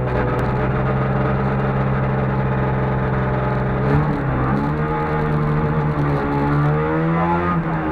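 Trabant 601 R rally car's two-stroke twin-cylinder engine, heard from inside the cabin. It holds steady revs, then about halfway the pitch dips and climbs as the car pulls away and accelerates, with a gear change near the end.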